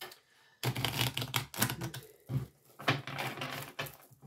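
A deck of oracle cards being shuffled by hand: rapid, irregular flicking and clicking of the cards in two or three bursts.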